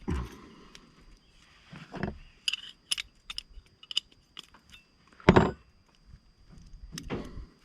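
Metal clinking and clanking of a hand swaging tool and wrench being handled on a rigging cable ferrule, with several dull thumps, the loudest about five seconds in.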